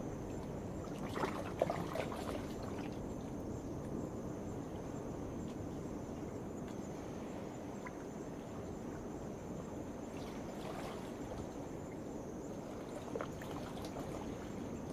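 Small waves washing and splashing against a rocky shore, with a couple of louder splashes, under a steady high-pitched drone of night insects.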